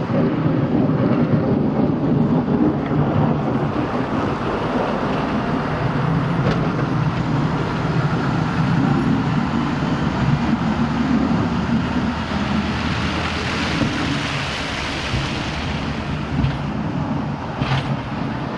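Road vehicle running on a snowy road: a steady engine drone with a hiss of tyres and slush that swells about two-thirds of the way through.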